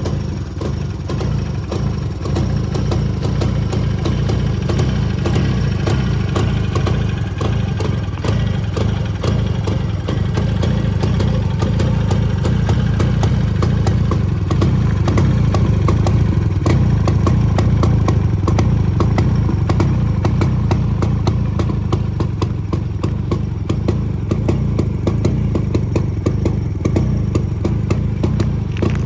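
Jawa 350 type 354's two-stroke twin-cylinder engine running at a steady idle, with a dense rapid clatter over the engine note, a little louder around the middle.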